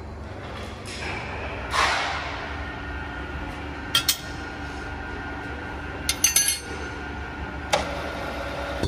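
Metal clinks of a spanner and a steel hold-down clamp on a drill press table: two about four seconds in, a quick cluster around six seconds, and one more near the end. They sit over a steady workshop machinery hum, with a brief rush of noise about two seconds in.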